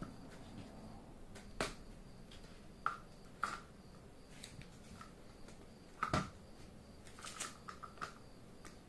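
Hard plastic Plarail toy train track pieces clicking and clacking as they are handled and fitted together by hand: scattered sharp clicks, the loudest about six seconds in, with a run of small clicks near the end.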